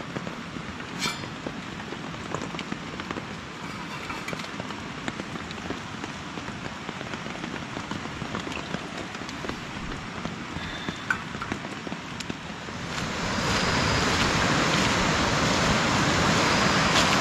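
Steady rain falling on the forest and a camp shelter, with scattered drips and small taps. About thirteen seconds in the rain becomes much louder and denser.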